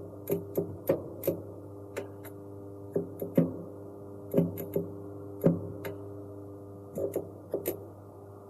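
Irregular sharp ticks and clicks, about a dozen spread unevenly, over a steady low hum.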